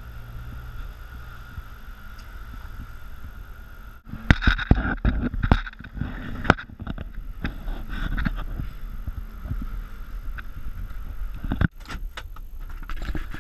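Car driving over a rough dirt track: a steady low engine and road rumble, then from about four seconds in, a run of sharp knocks and rattles as the car jolts over the bumps.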